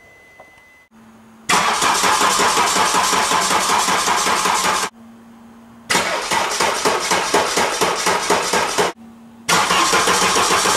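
Starter motor cranking the 2005 Saab 9-5's 2.2-litre direct-injection diesel in three bursts of about three seconds each, the first starting about a second and a half in, with a faint steady hum in the short gaps. The starter turns at full speed, fed by extra supply cables fitted to cure a hard-starting problem.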